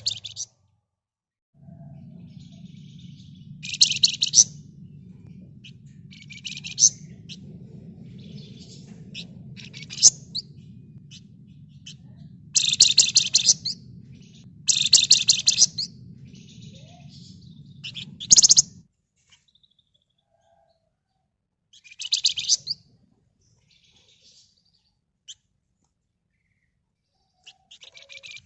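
A flamboyan bird giving short bursts of rapid, dense rattling chatter (the 'ngebren' call), about seven bursts spaced a few seconds apart. A steady low hum runs underneath and stops about two-thirds of the way through.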